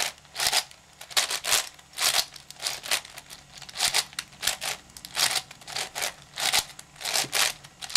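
Layers of a pillow-shaped 7x7x7 plastic puzzle cube being turned by hand in quick succession, giving a run of short plastic rasping clicks, about two a second, as a move sequence is carried out.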